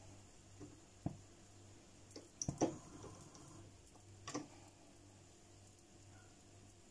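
A faint steady low hum with a few soft knocks and clicks: one about a second in, a louder cluster near the middle, and one more a little after.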